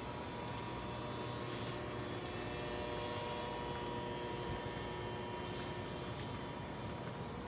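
Steady background hum with a few faint, unchanging whining tones, and no distinct knocks or calls.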